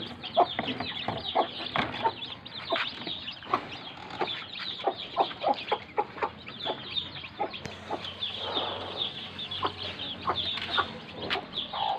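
Mother hen clucking in short repeated calls over the continuous high peeping of her newly hatched chicks. The clucking is her food call, teaching the chicks to eat.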